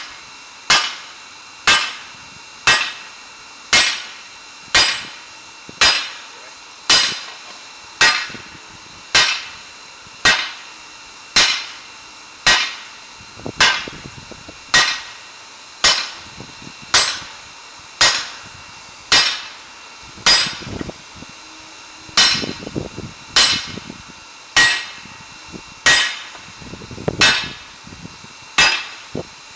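Hammer blows on red-hot sword steel laid over a round steel-block anvil, a sharp metallic ring on each strike. The blows come in a steady rhythm of about one per second.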